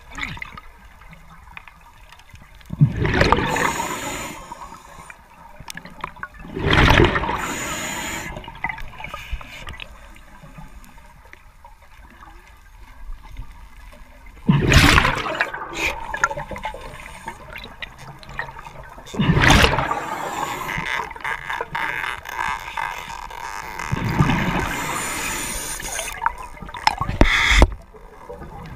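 A diver's exhaled air bubbling underwater: a rush of bubbles every few seconds, six in all, with a softer watery hiss between.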